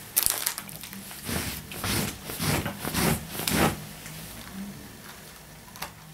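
Wrapped biscuit pack being grabbed and picked up: a sharp tap just after the start, then crinkling and rustling of the wrapper in several swells over the next few seconds, settling down near the end.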